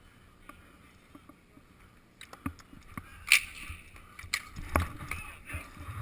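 Roller hockey play on a concrete rink: sharp clacks of sticks hitting the plastic ball and the floor, starting about two seconds in, the loudest crack about a second later.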